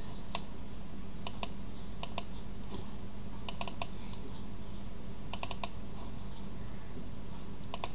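Computer mouse clicking, mostly in quick double-clicks and short runs every second or two, over a steady low electrical hum.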